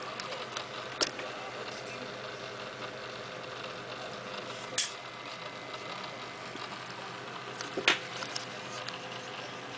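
Steady low hum of a small motor with hiss, and three sharp clicks: about a second in, near the middle, and a louder one about eight seconds in.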